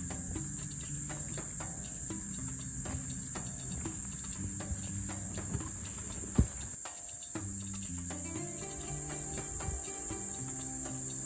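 A steady high-pitched drone of cicadas in summer woodland, over background music of held low notes that step from one to another. A single sharp knock about six seconds in.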